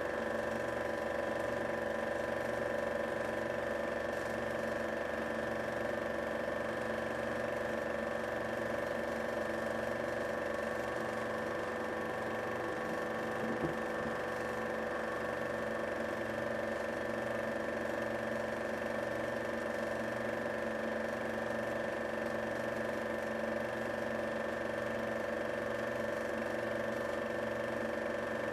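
Film projector running: a steady motor whir with a constant hum and a slow, even pulse underneath, and a single click about halfway through.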